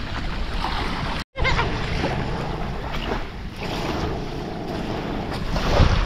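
Wind buffeting the microphone over surf washing onto a beach, a steady rushing noise with low rumble. The sound cuts out completely for a moment just over a second in.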